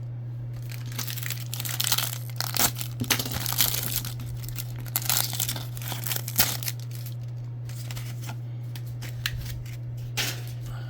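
A trading-card pack wrapper being torn open and crinkled by hand: a run of crackling rips over several seconds, then a brief crinkle near the end, over a steady low hum.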